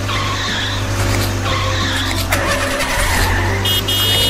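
Cartoon sound effect of a school bus: a steady engine rumble with tyres skidding in several stretches, over children's background music. A brief high tone sounds near the end.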